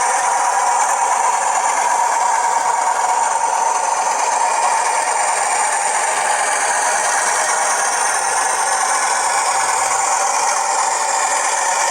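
Sound decoder in a model Class 40 diesel locomotive playing its engine sound through a small speaker: a steady, thin, rattly diesel running with no bass.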